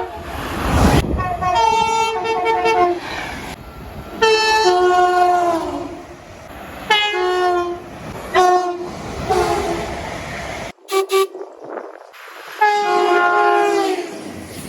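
Train horns sounding a run of about seven blasts, long and short, each a two-note call stepping from a higher note down to a lower one. A train's running rumble lies beneath the first several blasts and cuts off suddenly a little over two thirds of the way through, where one clip gives way to the next.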